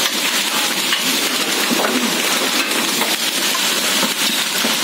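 Hail and heavy rain falling on a concrete yard: a steady dense hiss of rain, peppered with many small ticks of pellets striking the ground.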